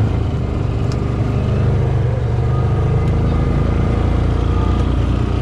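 A motor vehicle's engine running steadily with a deep, even hum, as on a farm vehicle being driven along.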